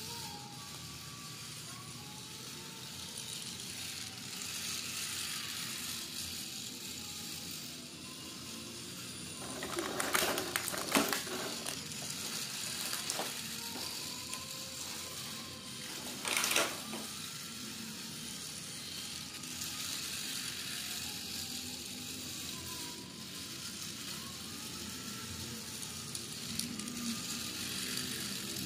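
A battery-powered toy train running around its plastic track, a steady hissing rattle under faint music. Two louder, noisy bursts come about ten and sixteen seconds in.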